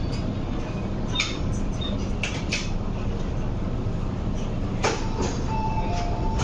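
Interior of a Metro-Cammell MLR electric train standing at a platform: a steady low hum with a few knocks, then a sharp clunk about five seconds in as the sliding passenger doors release. A two-note electronic door chime follows, alternating between two tones as the doors open.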